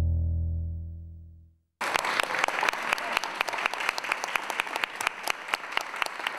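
Belly-dance music ends on a held chord that fades out over about a second and a half. After a brief silence, a small audience applauds, with separate hand claps standing out.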